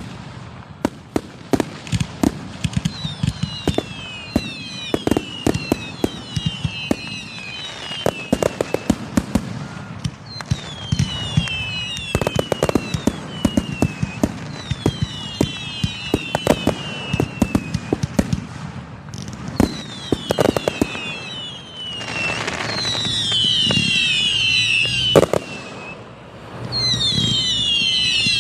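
Aerial fireworks display heard from close by: a dense run of sharp bangs and pops, with clusters of whistles that fall in pitch several times. Near the end the bangs thicken into a louder stretch.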